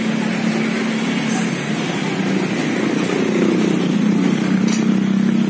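A motor vehicle engine running at a steady pitch close by, growing louder about halfway through.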